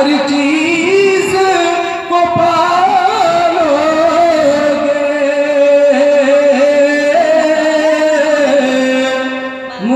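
A man singing a naat, an Urdu devotional poem, solo into a microphone, drawing out long held notes with wavering ornaments.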